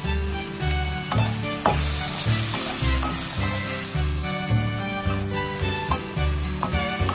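Carrot, green bell pepper and shiitake mushroom pieces sizzling in a nonstick frying pan as a plastic slotted spatula stirs them, with a few sharp scrapes and taps of the spatula on the pan. Background music with a steady beat plays underneath.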